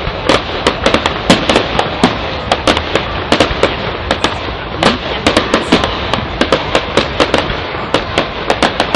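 Fireworks going off in rapid succession: a dense stream of sharp cracks and bangs, several a second, over a steady crackling hiss.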